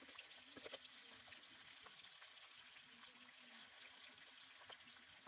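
Faint trickling of running water, with a few soft ticks scattered through it.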